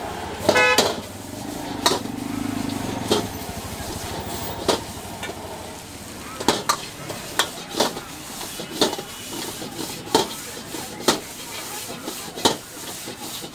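Metal wok ladle and spatula clanking and scraping against a wok while rice noodles are stir-fried, over a steady sizzle. The knocks come irregularly, about once a second, with one ringing clang near the start.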